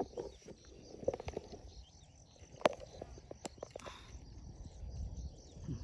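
Quiet outdoor background with scattered faint clicks and rustles, and one sharper click about two and a half seconds in.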